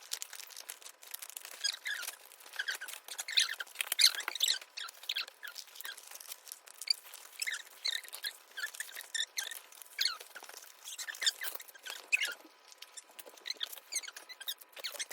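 Plastic packaging and photocards being handled, making many short, irregular crinkles, rustles and small squeaks in quick succession.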